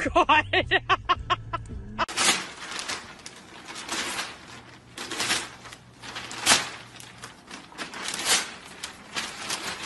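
A fast run of short, pitched cries at about six a second, cut off about two seconds in. Then a newspaper rustles and crackles as a golden retriever grabs and tugs at its pages in its mouth, in many quick bursts.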